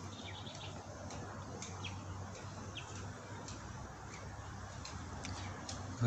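Wild starlings (jalak) calling in the trees: scattered short, high chirps and a few brief whistled notes, faint over a steady low hum.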